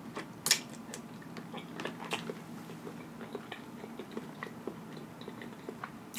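A person chewing a sauce-coated mouthful of seafood boil food, with small wet clicks and smacks of mouth and fingers; a sharper click comes about half a second in.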